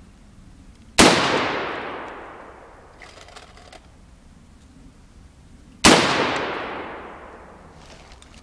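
Two single shots from an AR-15 rifle, about five seconds apart, each ringing out and dying away over a second or two.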